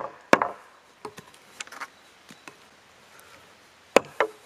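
Axe blade tapped into a freshly cut wooden pole, chipping out the waste wood between saw cuts so it breaks away to form a notch. There are a couple of sharp knocks at the start, a quiet stretch with faint small ticks, then two more knocks near the end.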